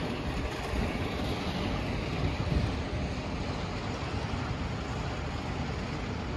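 Wind buffeting the camera microphone outdoors: a steady rushing noise with a fluctuating low rumble and no distinct events.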